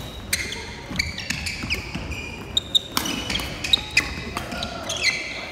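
Badminton doubles rally: a string of sharp racket-on-shuttlecock hits, some in quick succession, mixed with short high squeaks of court shoes on the sports-hall floor.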